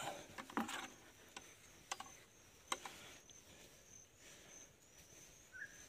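Faint, steady, high-pitched insect chirring, with a few soft clicks or footfalls in the first three seconds.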